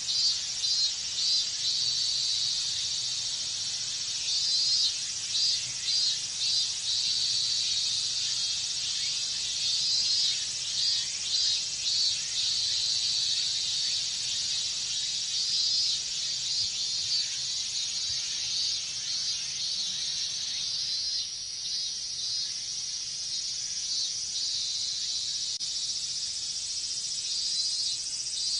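Chorus of robust cicadas (minminzemi) in full summer song: a steady high shrill, with phrases of rapidly repeated pulsing calls rising out of it every few seconds.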